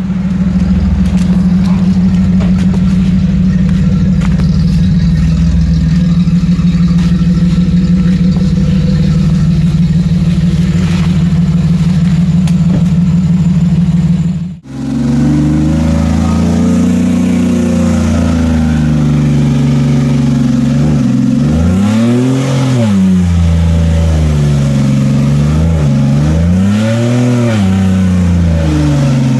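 Off-road 4x4 engine running at a steady speed, then after a sudden break it revs up and back down twice.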